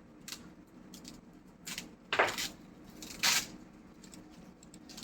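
A few short knocks and scrapes of something being handled, the two loudest about two and three seconds in.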